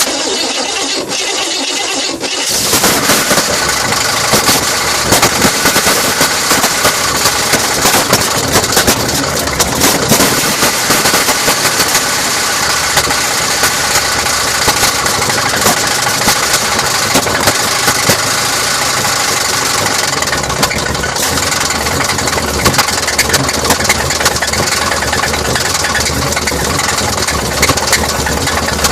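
Freshly installed Chevrolet 454 big-block V8 turned over and catching about two and a half seconds in, then running steadily with frequent small spikes in level. It is making a weird noise that the owner cannot place.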